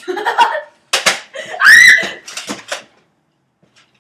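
Children shouting and laughing, with one high-pitched scream that rises in pitch, the loudest sound, just under two seconds in. A sharp smack comes about a second in.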